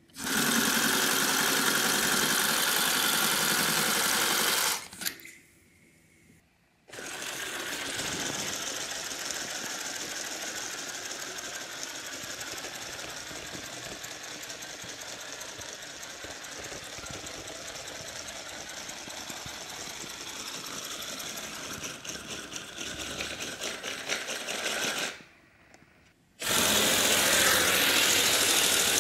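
3D-printed oscillating-cylinder motor running on compressed air from a balloon: a fast, even mechanical chatter with a steady hiss of air escaping from the leaky cylinder. It runs three times with short pauses between; the long middle run is quieter than the first and last.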